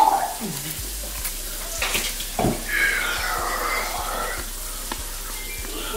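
A man groaning in pain from a mouth burning with Trinidad scorpion pepper, a wavering strained sound in the middle, over a steady hiss.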